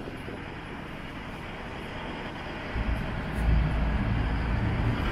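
Tracked excavator's diesel engine running with its hydraulics working the sorting grapple, the rumble growing louder and deeper about three seconds in.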